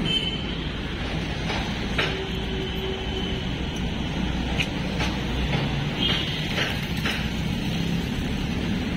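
Street traffic noise: a steady rumble with a few short knocks and brief high tones over it.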